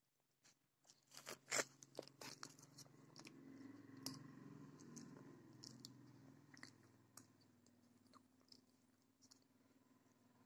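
Faint chewing and crunching of someone eating by hand. A cluster of sharp clicks comes in the first few seconds, then occasional clicks over a low steady hum.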